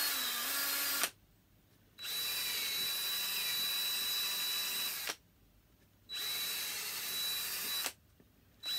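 Cordless drill reaming out holes in a wooden block, running in four bursts with a steady high whine. It stops and starts again about a second later, three times, with the bursts lasting about one to three seconds.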